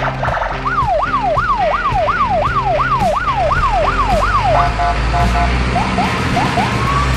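Electronic siren cycling through its patterns: a fast wail sweeping up and down about three times a second, then a rapid stuttering warble and short rising whoops. Low, steady tones sound beneath it throughout.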